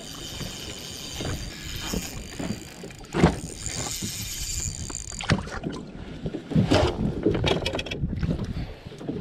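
A spinning reel is cranked against steady wind and water noise. From about five seconds in comes a run of knocks and handling rustles as a hooked smallmouth bass is brought aboard the bass boat.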